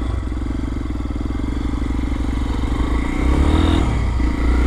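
Lifan KPX250's single-cylinder four-stroke engine running as the motorcycle pulls away and rides off. The engine note is steady, with a short dip about four seconds in before it picks up again.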